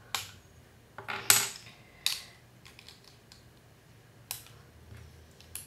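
Lego bricks clicking and snapping together as they are handled and stacked: about six sharp plastic clicks at uneven intervals, the loudest a little over a second in.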